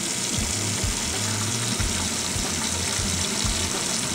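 Kitchen tap running a steady stream into a stainless steel sink, the water draining freely down the plughole now that the blockage has been cleared.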